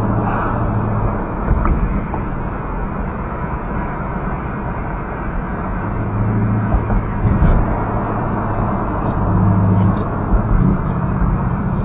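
A V8 car engine running with a low, steady exhaust note, its loudness swelling slightly now and then.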